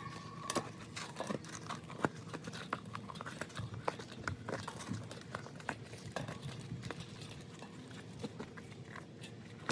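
Bicycle inner tube being tucked by hand into the tire on the wheel rim: scattered light knocks and taps with rubbing of rubber, at an irregular pace.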